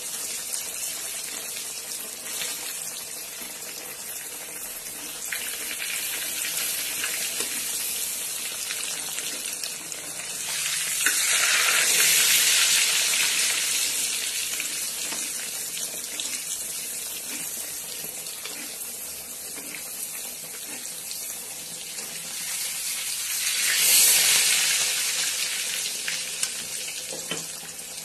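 A whole block of paneer frying in hot oil in a kadai: a steady sizzle that swells louder about eleven seconds in and again around twenty-four seconds. A few light taps of the spatulas against the pan.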